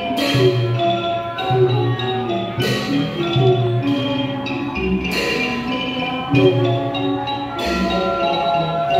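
Piphat mon ensemble music, the Mon-style Thai percussion ensemble: tuned gongs and xylophones play a busy melody over low drum strokes, with a bright crash about every two and a half seconds.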